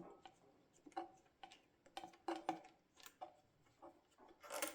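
Screwdriver undoing the side screws that hold a Mercedes Model 8 typewriter's typebar segment: a string of faint, irregular small metallic clicks and creaks, with a louder one near the end.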